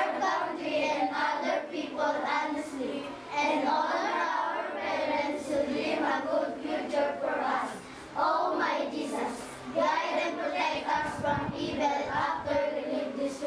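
A group of children singing a prayer together in unison.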